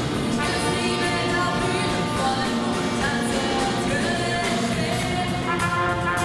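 Live pop band playing a song: two women singing the melody over a drum kit and electric guitar, with a sustained melodic instrument line.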